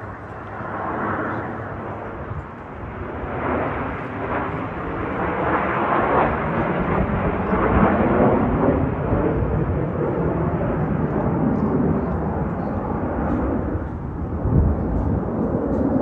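Jet aircraft flying past: Snowbirds CT-114 Tutor jets. The engine noise swells from about three seconds in into a loud, steady rush that stays up and eases a little near the end.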